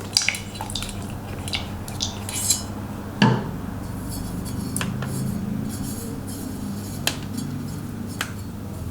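Scattered metallic clinks and knocks of engine parts being handled during a Yamaha XT600E engine rebuild, with one sharper knock a little over three seconds in, over a low steady hum.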